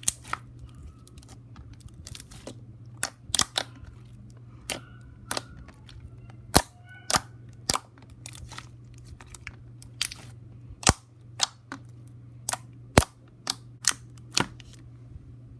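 Thick slime being poked, stretched and squeezed by hand, giving sharp pops and clicks as air pockets burst, irregular at about one or two a second.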